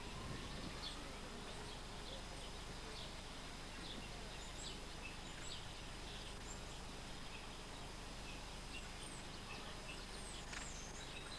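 Steady faint outdoor background hiss with small birds chirping here and there, short high calls throughout and a few quick gliding chirps near the end.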